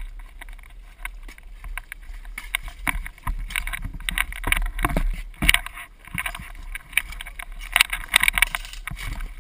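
Irregular clicks, knocks and rustling, in clusters about four and eight seconds in: handling and movement noise on a gun-mounted camera during an airsoft game.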